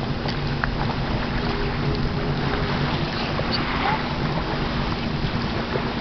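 Steady hum of a boat's motor with wind buffeting the microphone.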